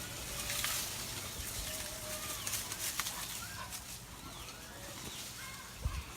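Outdoor background hiss with scattered faint clicks and a few short, faint chirping calls, and a dull thump near the end.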